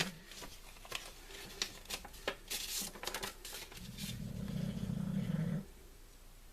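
Paper and card rustling and clicking as a handmade paper scrapbook album is handled and opened, with a brighter rustle near the middle. About four seconds in a low hum of a voice runs for over a second, the loudest sound, then it goes quiet.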